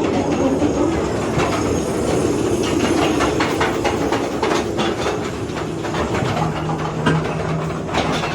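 Calico Mine Ride train cars rolling and rattling along the track, with many irregular wheel clacks over a steady rumble. A low steady hum comes in about six and a half seconds in.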